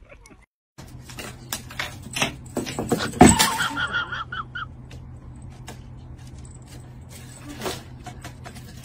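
A cat scrambling and pouncing after a feather wand toy on a wooden floor: a run of knocks, scuffles and clatter, loudest a little past three seconds, with a short cry in the middle of it. A steady low hum runs underneath.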